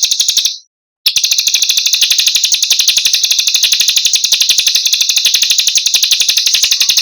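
A recorded high-pitched trill made of very rapid, evenly spaced pulses, the tight 'roll rapat' kind of song used in masteran training tracks. It breaks off for about half a second just after the start, then resumes unchanged.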